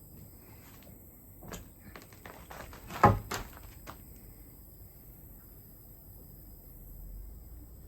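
Footsteps and knocks on a wooden subfloor: a quick run of clicks and taps with one loud thump about three seconds in, then it goes quiet.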